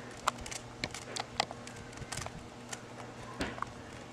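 Rubik's Cube being scrambled by hand: its plastic layers twisted in quick turns, making irregular clicks several times a second over a steady low hum.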